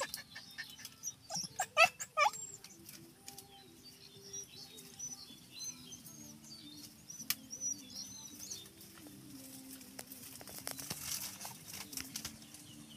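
A dog barks a few quick times in the first two seconds, then twigs and bamboo canes crackle and rustle as it works through the brush pile, with faint bird chirps.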